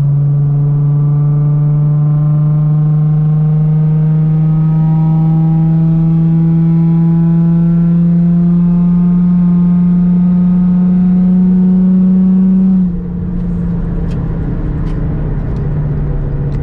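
Nissan 350Z's 3.5-litre V6, with test pipes and a muffler delete, pulling at full throttle: the loud exhaust note climbs steadily in pitch from 2000 toward 4000 rpm for about thirteen seconds, then drops sharply and falls quieter as the throttle is lifted, settling to a lower drone. This is a load-calibration pull for an ECU remap.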